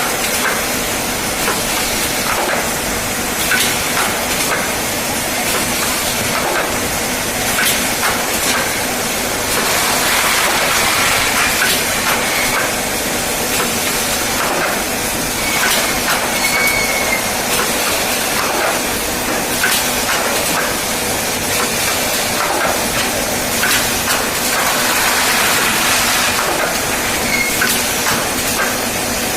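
Shrink-film bundling machine running: a steady hissing rush with frequent small clacks and knocks from its moving parts.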